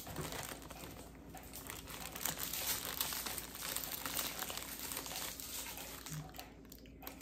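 Faint crinkling and crackling of a snack wrapper being handled and opened, coming and going in small irregular ticks and busiest in the middle.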